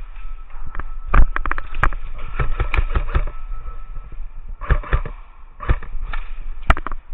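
Airsoft guns firing in bursts of rapid sharp pops: a longer run about a second in, then shorter bursts and a single shot near the end.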